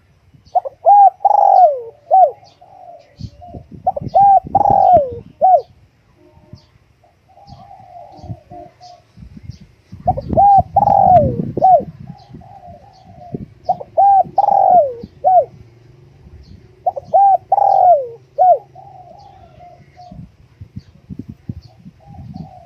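Spotted dove cooing: five phrases, each a run of several arched notes, a few seconds apart. A low rumbling noise sits under the third phrase.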